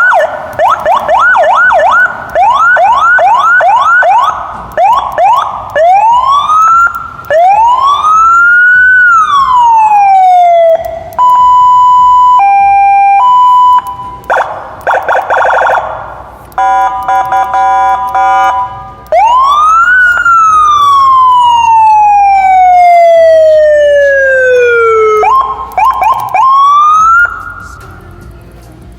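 HHS QH150 150-watt electronic siren amplifier cycling through its Senken-style tones, loud and shrill. It plays a fast yelp of about three rising sweeps a second, a few slow rise-and-fall wails, and a two-note hi-lo. Then it gives a buzzy horn blast, one long wail that rises fast and falls slowly, and a short burst of yelp that ends about two seconds before the end.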